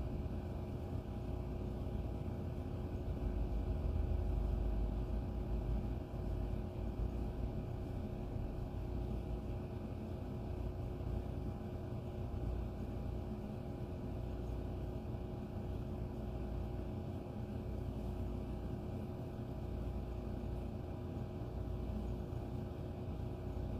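A steady low hum and rumble with a few faint constant tones, swelling slightly about four seconds in.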